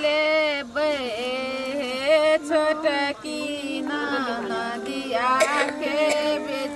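Women singing a traditional wedding song, with long notes that slide up and down in pitch and short breaks between phrases.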